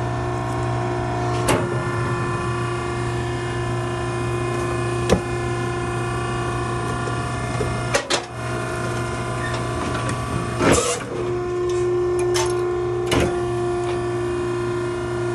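Maren cardboard baler's hydraulic power unit running with a steady hum of several fixed tones. Five sharp knocks are spaced a few seconds apart across it.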